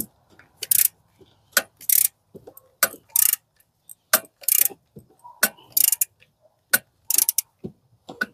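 Hand ratchet with a 12 mm socket clicking through repeated short back-strokes, about one every 1.3 seconds, each a sharp click then a brief rasp of the pawl. It is tightening the stiff top bolt of an ignition coil bracket, which goes in hard.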